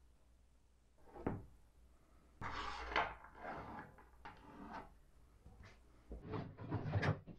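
Birch plywood panels being handled on a saw table: a single knock, then the panel sliding and scraping across the top, followed by scattered light taps and a quick run of knocks near the end.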